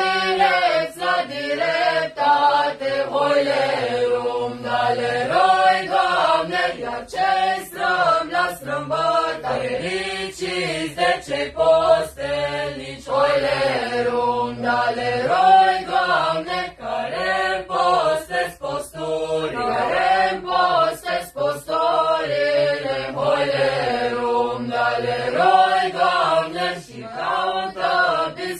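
A mixed group of young men and women singing a traditional Romanian Christmas carol (colindă) together.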